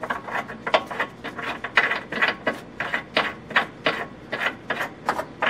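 Irregular metal clicks and scrapes, about two to three a second, as a subframe collar and its bolt are worked up into the subframe by hand.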